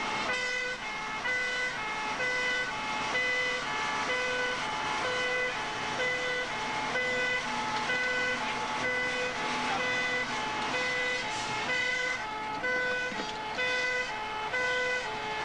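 Fire engine's two-tone siren sounding the alternating high-low 'nee-naw' call, each note lasting about a third of a second, heard from inside the cab while driving on a call.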